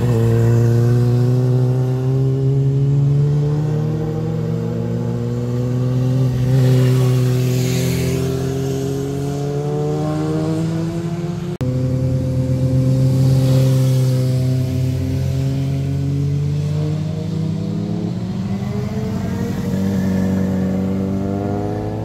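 Sport motorcycle engines riding past through a hairpin: first a Kawasaki sport bike, then, after an abrupt change about halfway through, another sport bike. Each engine note sinks and rises as the bike slows and accelerates through the bend, and a brief hiss comes as each bike is closest.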